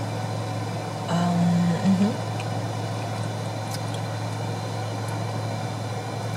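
Car engine idling, a steady low hum heard inside the closed cabin, with a short low pitched sound about a second in.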